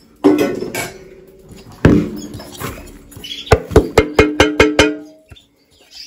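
Spoon knocking against a bowl while food is moved between bowls: a few single clinks, then a quick run of about eight taps, each ringing briefly.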